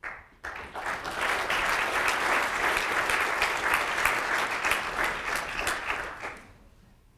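Audience applauding the end of a talk: the clapping starts right away, fills out within the first second and dies away about six and a half seconds in.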